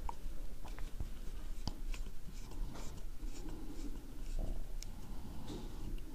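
Small screwdriver driving a tiny screw into a drone's shell to mount its GPS module: faint scratching and scattered light clicks of hand work.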